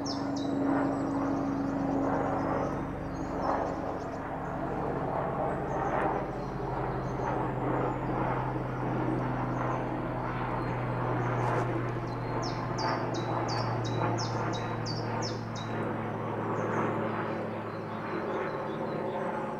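Helicopter flying over, a steady low drone from its engine and rotors that is a bit noisy. Partway through, a bird gives a quick run of high chirps.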